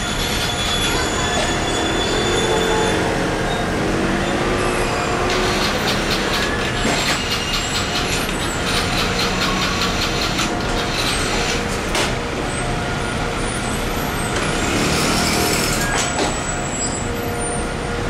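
Steady city street traffic noise, with motor vehicles such as buses and cars running past.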